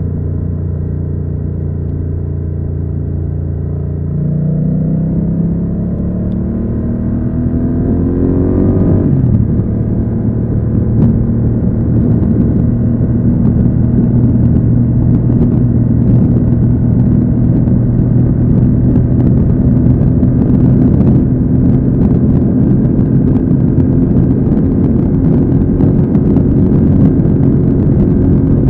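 BMW F900R's parallel-twin engine under way: it runs steadily, then about four seconds in climbs in pitch as it accelerates through a gear, drops sharply at an upshift about nine seconds in, and settles into a steady cruise with more wind and road noise.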